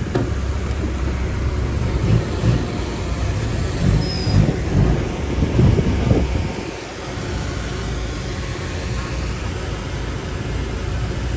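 Heavy diesel earthmoving machinery running steadily under load, with a run of knocks and rattles in the first half and a brief drop in level about seven seconds in.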